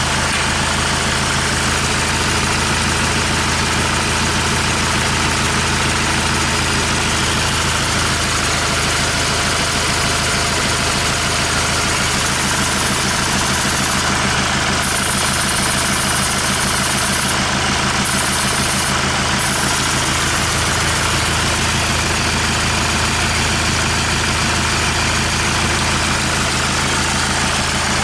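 Hyundai D4CB 2.5-litre four-cylinder common-rail turbodiesel idling steadily, run out of the vehicle on a test stand during an oil-pressure check.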